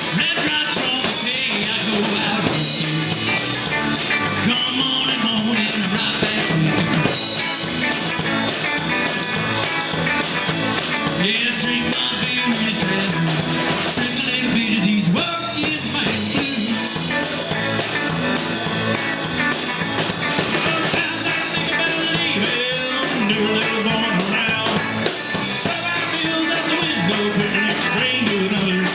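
A rock band playing a blues song: guitar over a drum kit, steady and full throughout.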